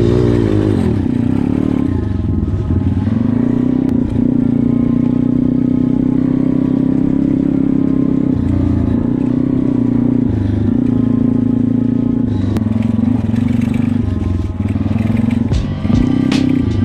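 140cc pit bike's single-cylinder engine running under throttle at fairly steady revs, the tone dropping briefly several times as the throttle eases or gears change. Occasional knocks and clatter from the bike.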